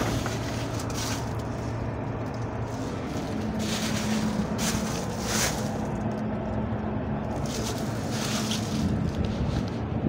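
Outdoor background noise: a steady low hum under a hiss, with a few brief rushes of noise about four to five seconds in and again near eight seconds.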